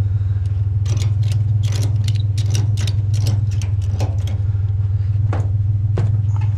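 Vehicle engine idling steadily with a loud low hum, while many short clicks and clanks, irregularly spaced, sound over it from the scrap load being handled and tied down.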